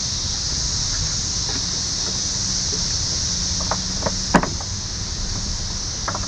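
Hobie kayak seat's front clips being fastened onto the hull's bars: a few short, sharp clicks, the loudest about four seconds in, over a steady high hiss.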